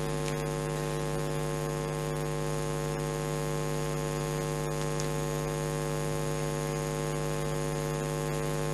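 Steady electrical hum with a stack of even overtones, unchanging in pitch and level.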